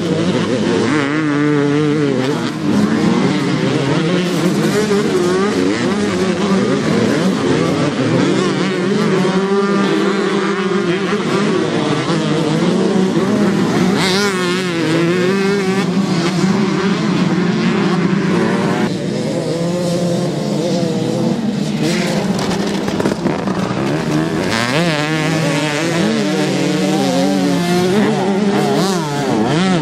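Several motocross bikes racing past, their engines revving hard and easing off, the pitch rising and falling with the throttle as bikes overlap.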